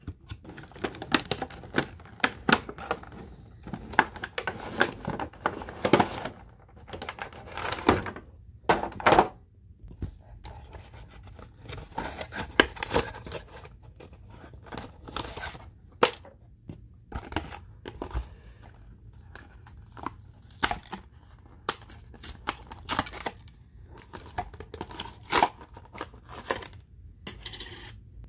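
An action-figure package being opened by hand: the clear plastic blister tray and the cardboard box and insert crinkle and crackle, with irregular sharp clicks and snaps of the plastic throughout.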